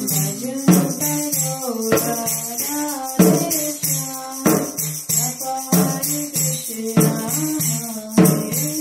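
Kirtan music between sung lines of the mantra: a flowing pitched melody over steady jingling hand percussion, with a strong beat about every second and a quarter.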